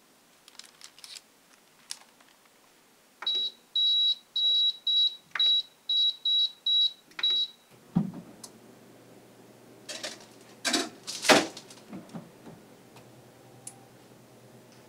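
Oven-style air fryer's control panel beeping about ten times in quick succession as it is set to 160 °C and 10 minutes. Then its fan starts with a steady low hum, and a baking tray clatters as it goes onto the rack, the loudest sound.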